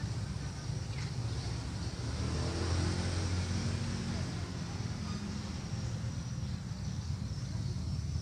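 An engine running steadily with a low hum, its pitch rising slightly about two to three seconds in.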